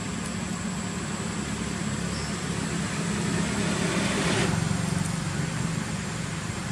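Road traffic: a steady low engine hum, with a passing motor vehicle swelling louder about three seconds in and cutting off sharply at about four and a half seconds.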